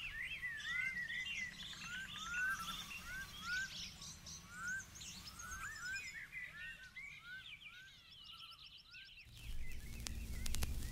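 Faint birds chirping, many quick rising chirps one after another, dying away about nine seconds in. A low rumble with a few clicks follows near the end.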